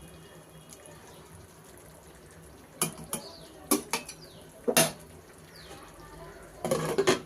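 Metal spoon knocking and scraping against a cooking pan: a few separate clinks in the middle and a quick cluster of them near the end, over a faint low background.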